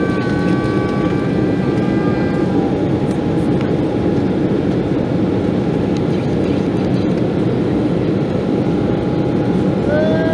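Embraer 190 cabin noise heard from a window seat over the wing during the climb: the steady, loud rush of its CF34 turbofan engines and airflow. A faint whining tone sits over it at first and fades about two seconds in.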